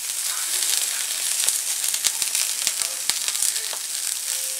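Sweet shrimp heads frying on foil in a frying pan as they crisp up: a steady sizzle with scattered sharp crackles, several of them in the middle of the stretch.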